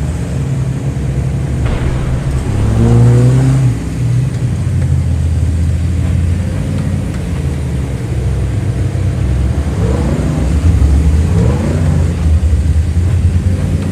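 Simulated truck engine sound effect for an RC scale crawler, running low and steady and revving up twice, about three seconds in and again about ten seconds in.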